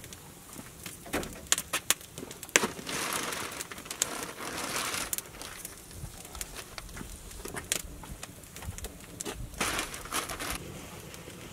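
Small alder-wood fire crackling in the bottom of a wooden smoker, with sharp irregular pops.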